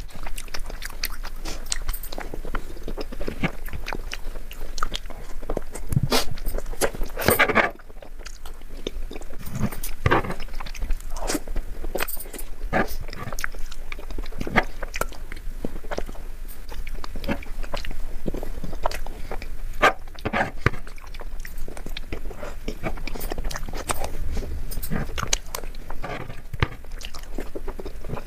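Close-miked eating sounds: steady chewing and wet mouth smacks of soft Indian sweets, with many short sharp clicks throughout and a brief lull about eight seconds in.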